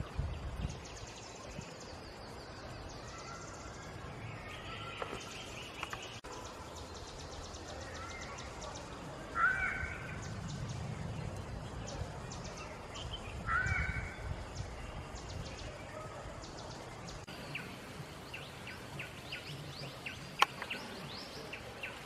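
Outdoor ambience with birds calling now and then, including two louder short calls about ten and fourteen seconds in, and a single sharp click near the end.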